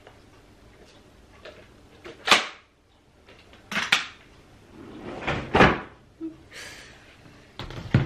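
Hard plastic knocks and clatters from a Dyson cordless vacuum body being handled and set down on a benchtop: several separate sharp knocks, the loudest about two seconds in, a pair near four seconds, a cluster around five and a half seconds and another near the end.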